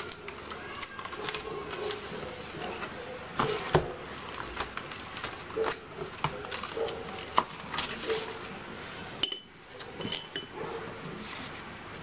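Paper handled by hand: wrapping paper and a sheet of plain paper rustling and crinkling as they are folded and pressed, with scattered light taps and clicks on the tabletop, the sharpest a little under four seconds in and again past seven seconds.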